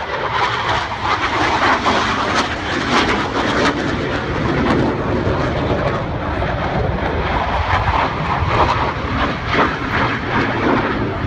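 Boeing F/A-18 Hornet jet flying past, its twin jet engines making a loud, steady rushing noise.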